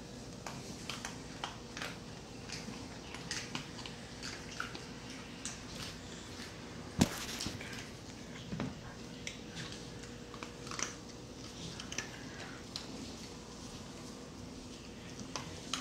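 A small dog eating dry kibble from a dish: irregular crunches and clicks of kibble against the bowl, with one louder knock about seven seconds in.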